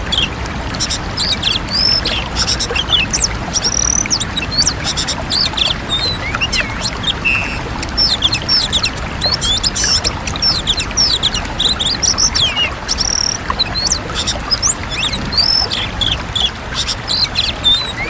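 Oriental magpie-robin singing: a fast, continuous run of varied whistled notes, many sweeping up or down, over a steady background hiss.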